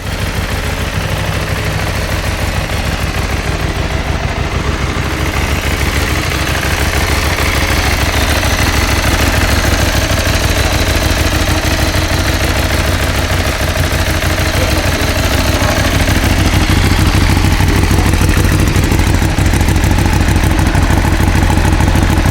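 Ducati Streetfighter 1098's L-twin engine idling steadily with a lumpy low beat and a clicking over it.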